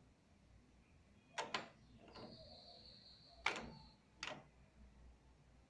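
Metal clicks of a key working in a door lock: two quick clicks, then a louder clack and one more click. A thin, high, steady squeak lasts about two seconds between them.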